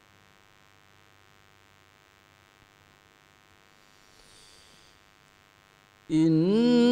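Near silence with a faint steady hum while the reciter pauses between verses. About six seconds in, a man's voice comes back in, chanting Quran recitation in the melodic mujawwad style: the note rises, then is held.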